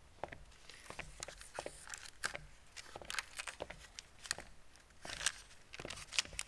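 Scattered light clicks and rustles: footsteps on a hard floor and the crinkle of newspaper under hands on a table.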